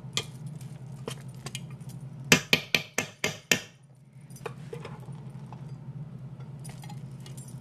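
A metal utensil clinking and scraping against a metal serving dish while mixing rice, lentils and fried onions, with a quick run of about six sharp clinks midway, over a steady low hum.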